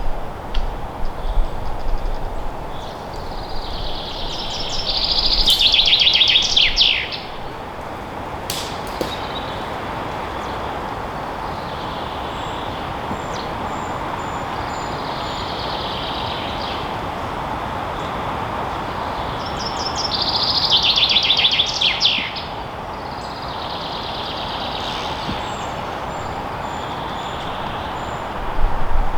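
Forest ambience: a songbird sings a rapid trilled phrase a few seconds in and repeats it about twenty seconds in, with faint high chirps between, over a steady rushing background.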